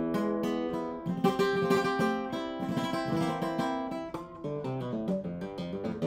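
1962 José de la Mora acoustic guitar played solo, its tone rich in overtones: sustained chords, a quick flurry of strums about a second in, then a run of single notes stepping down in pitch near the end.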